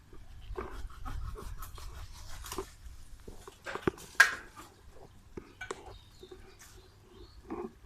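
Tree branches and leaves rustling and knocking irregularly, with one sharp crack about four seconds in.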